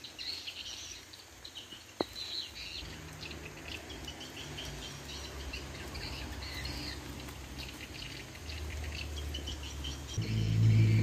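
Small birds chirping and calling in tropical forest, with a low rumbling noise on the microphone that grows much louder near the end and a single sharp click about two seconds in.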